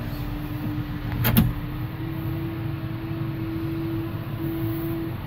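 John Deere 6715 tractor running steadily under way, heard from inside the cab: a low engine rumble with a steady whine that steps slightly higher about two seconds in. A single sharp knock a little over a second in.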